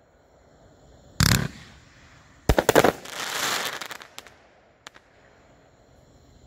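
3DPyro "The Fire God" 500-gram fireworks cake firing its last shots: one sharp bang about a second in, then a rapid cluster of bangs about two and a half seconds in, followed by a hiss of the burst lasting about a second and a few last small pops.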